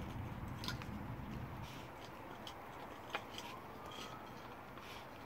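Husky gnawing on a water buffalo horn: faint, scattered clicks and scrapes of teeth on horn, with one sharper click about three seconds in.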